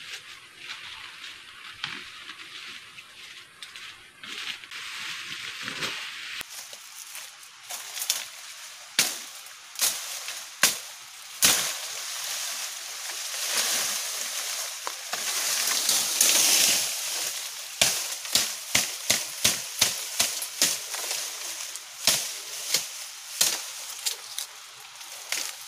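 Sharp knocks and strikes that come irregularly at first, then in a quick run of blows about three a second near the end, over a steady hiss.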